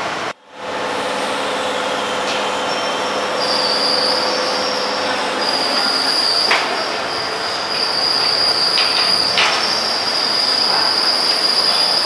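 Steady factory-floor machinery noise, with a high, steady squealing whine coming in about three seconds in and a couple of short clicks. The sound drops out for a moment just after the start.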